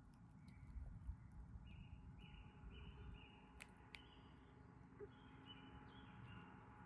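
Near silence with faint bird calls: a series of short, even, high notes repeated about once every half second, with two light clicks in the middle.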